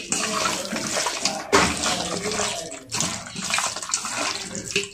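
Raw chicken being mixed by hand with chilli powder, turmeric, salt and ginger-garlic paste: a wet sloshing that sounds like running water although no water is in it, with short breaks about one and a half and three seconds in.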